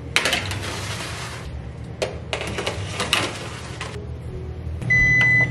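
A metal baking sheet slides onto an oven rack and the oven door is shut, giving a few clattering, rattling bursts. Near the end comes a single electronic beep, a steady high tone about half a second long, from the oven's timer.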